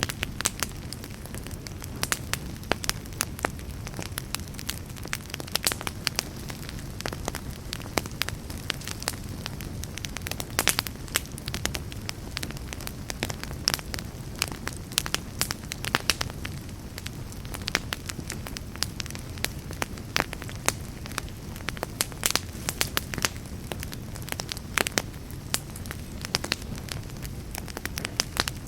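Wood fire in a fireplace crackling, with frequent irregular sharp pops and snaps over a low, steady rumble of the flames.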